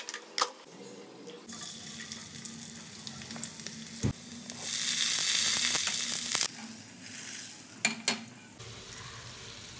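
Oil sizzling as chopped onions fry in a nonstick pan, with a few sharp clicks. The sizzle swells loudest for about two seconds midway.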